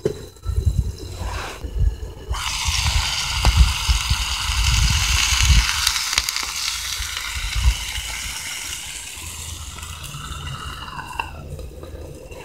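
Flank steak sizzling in hot oil in a 5-inch cast iron skillet as it is turned over with a fork. The sizzle starts suddenly about two seconds in and slowly dies down, with low thumps and rumbles underneath.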